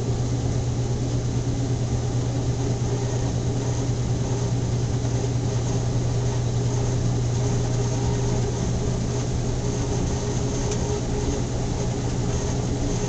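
Maytag washing machine running in its spin cycle, near full speed: a steady low hum with fainter higher tones over it.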